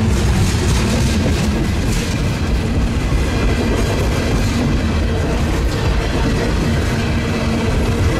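Freight train of refrigerated boxcars rolling steadily past close by: a continuous rumble of steel wheels on the rails with the rattle of the cars.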